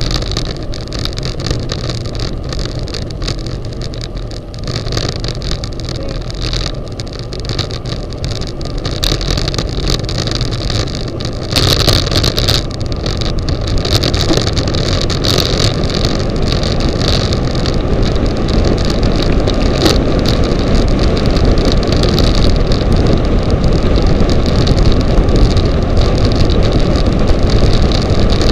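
Wind rushing over the microphone of a camera riding on a bicycle during a fast downhill run, a steady noise that gets louder about halfway through as speed builds.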